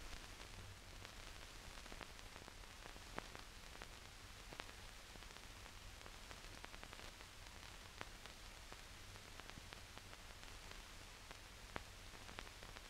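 Faint hiss and crackle of an old film soundtrack, with a low hum and a few scattered clicks.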